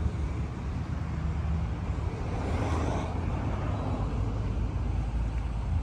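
Wind buffeting the microphone: a steady low rumble, with a brief swell of hiss about two and a half seconds in.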